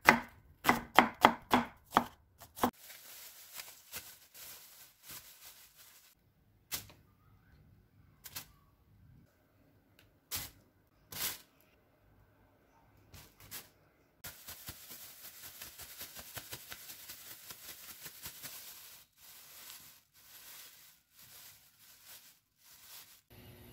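A kitchen knife chops onion finely on a wooden cutting board in a quick run of sharp strokes, stopping about two and a half seconds in. A few separate knocks follow. Then, for the last nine seconds or so, a plastic bag rustles and crinkles steadily as eggplant pieces are shaken in starch inside it.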